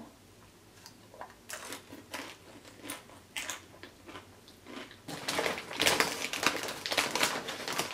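Close-up crunching of a queso-dipped tortilla chip being chewed, heard as scattered crisp crunches. About five seconds in, a plastic tortilla-chip bag crinkles and rustles for about two seconds as a hand reaches into it.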